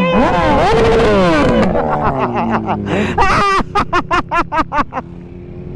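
Several motorcycles riding past one after another, their engines rising and falling in pitch as they go by. About three seconds in, a short burst of laughter.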